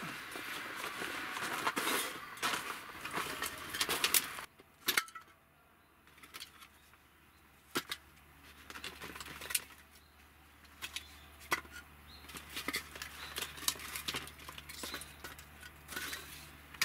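Rustling of a sleeping bag and bedding on an air mattress, which stops suddenly about four seconds in. Then scattered light clicks and knocks of split firewood and plastic baskets being handled, growing more frequent in the second half.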